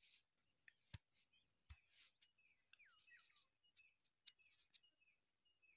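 Near silence, with a few faint distant bird chirps and small clicks.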